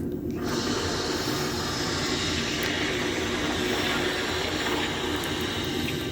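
Loud, steady rushing rumble, like a passing train or jet, that starts abruptly about half a second in.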